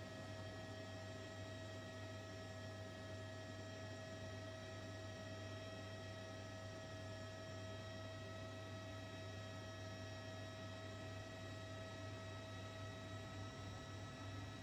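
A steady low hum, unchanging throughout, with several thin, steady higher tones above it.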